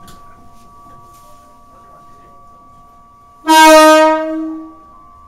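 Shin-Keisei 8800 series train's horn, heard from the driver's cab: a single loud steady blast starting about three and a half seconds in, held for about a second and then fading out.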